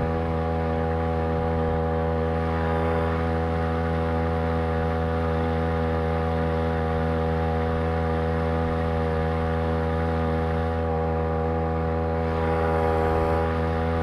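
Homemade outboard motor powered by a Champion T516 trimmer's small two-stroke engine, running steadily at constant throttle under way, with one even droning note; it swells slightly for about a second near the end.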